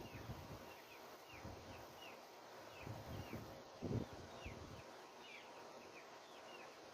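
Birds chirping: a steady run of short chirps that slide down in pitch, a couple a second, with a few low knocks about three and four seconds in.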